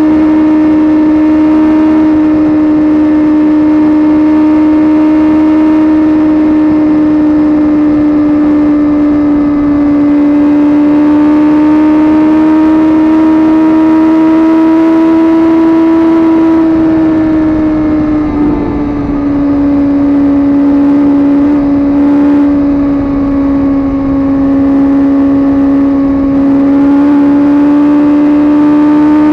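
Suzuki GSX-R sport bike engine running hard at a steady high speed, its pitch creeping up slowly. About two-thirds of the way through, the pitch dips briefly and settles a little lower, then climbs again near the end, with a rush of wind and road noise underneath.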